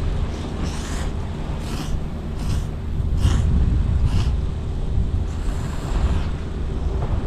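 Ramen noodles being slurped: a run of short slurps about a second apart, then a longer one, over a steady low wind rumble on the microphone.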